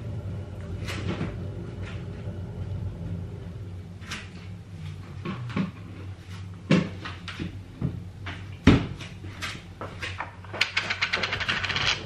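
Kitchen oven and fridge doors opening and closing and food being handled: a string of knocks and clicks, the loudest a heavy thump about nine seconds in, then a rapid run of small clicks near the end, over a steady low hum.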